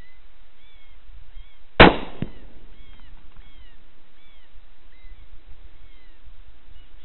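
A single rifle shot from a 22 Creedmoor about two seconds in, followed about half a second later by a fainter second crack. Geese call in repeated short honks in the background throughout.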